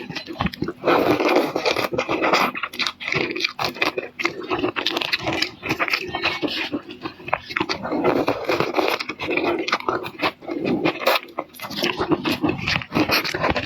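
Close-miked eating: wet chewing, smacking and crackling mouth sounds of a person eating shrimp, in a dense, irregular stream.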